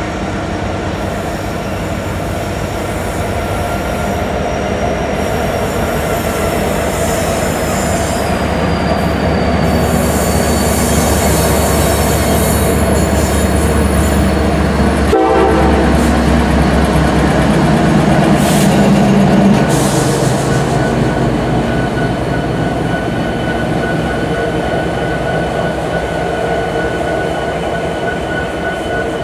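A consist of Kansas City Southern diesel-electric locomotives passing close by, engines running with a heavy rumble and wheels rolling on the rails, followed by autorack freight cars. It grows louder as the engines go by, peaking about two-thirds of the way through, then eases as the cars roll past, with a thin steady high whine over the rumble.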